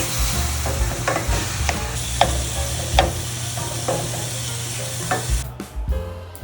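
Vegetables sizzling in a hot frying pan as they are stir-fried, with a utensil tapping and scraping against the pan about every half second. The sizzling cuts off about five and a half seconds in, leaving background music.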